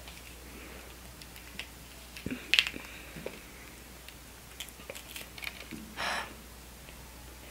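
A fresh jalapeño being picked apart by hand and chewed: scattered small crunches and clicks, the sharpest about two and a half seconds in, then a short puff of breath about six seconds in.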